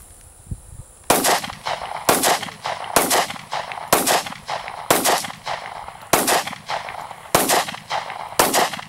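Eight gunshots from a semi-automatic firearm, fired in steady succession about once a second, each followed by a short echo trail.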